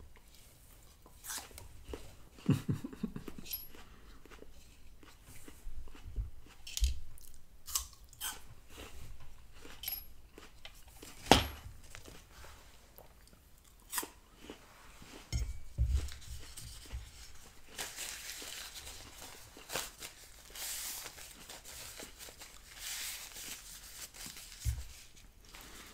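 Close-miked crunching and handling sounds with scattered sharp clicks and taps, the loudest about eleven seconds in, and a stretch of rustling a few seconds before the end.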